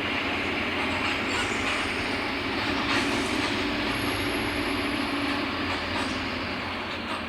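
Mercedes-Benz OF-1721 Bluetec 5 bus on the move: a steady engine drone mixed with road and body rumble. It eases off slightly near the end.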